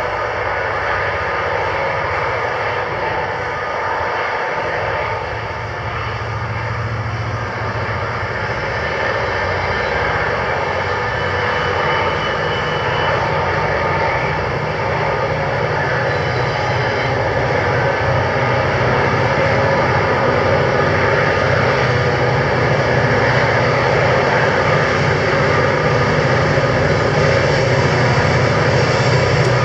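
Five diesel-electric freight locomotives hauling a loaded grain train, their engines running in a steady low drone that grows gradually louder as the train approaches.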